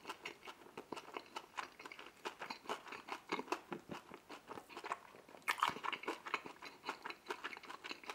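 Close-miked chewing of a mouthful of deep dish pizza: a steady run of small wet clicks and crunches, with louder crunching about five and a half seconds in.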